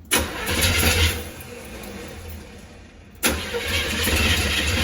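Chevrolet Monte Carlo's carbureted engine cranking on the starter in two tries, the second starting suddenly about three seconds in, sounding close to firing but not catching. It is a no-start after a full rewire, which the owner puts down to the distributor timing being off or to missing ground straps.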